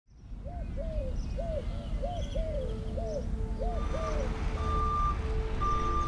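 Steady low vehicle engine rumble with a bird calling in short rising-and-falling notes. About four seconds in, a reversing alarm starts beeping roughly once a second.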